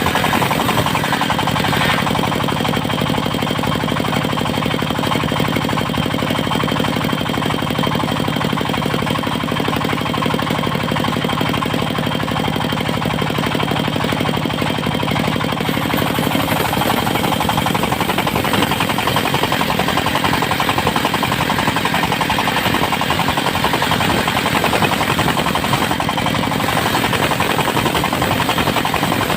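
Engine of a portable circular-saw sawmill running steadily with a rapid, hard pulsing beat; its tone shifts about two seconds in and again about halfway through.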